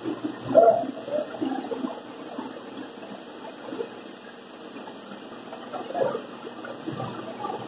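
Irregular scrapes and knocks of a long board being shifted and lined up on a sliding table saw's carriage, over a steady rushing noise. The loudest knock comes about half a second in, another about six seconds in.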